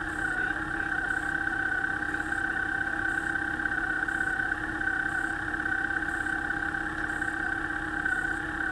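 Motorcycle engine idling steadily, with a constant whine.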